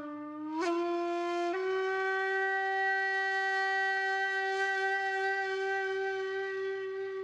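Background music: a wind instrument holding long notes, stepping up in pitch twice in the first two seconds, then sustaining one steady note.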